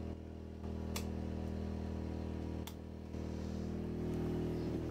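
Steady low machine hum with several evenly spaced tones, stepping slightly louder and quieter a few times, with two faint clicks.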